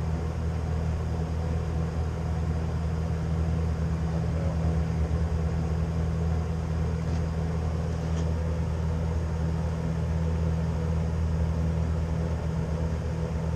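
Steady low mechanical hum of a running machine, unchanging, with a couple of faint clicks about two-thirds of the way through.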